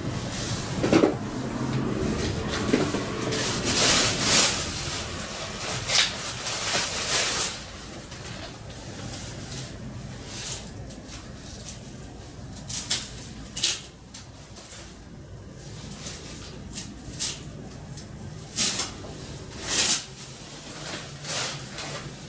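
Hand work with hard, metal-sounding parts: louder scraping and rustling with knocks for the first several seconds, then scattered sharp clicks and knocks.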